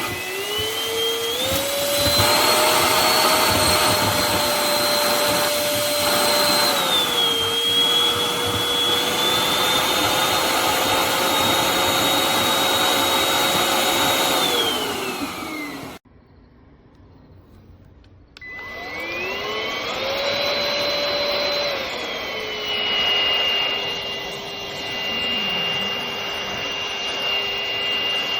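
Cordless stick vacuum cleaner's motor starting with a rising whine, running, then dropping to a lower speed. Near the middle it winds down with a falling whine and stops, then about two seconds later it starts again, spins up, and settles at a lower speed.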